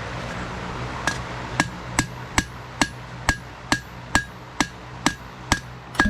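A 3-pound dog's head forging hammer striking hot wootz steel by hand, about a dozen steady blows at roughly two a second, each with a short metallic ring. The blows begin about a second in, as the tip is forged into a spear point.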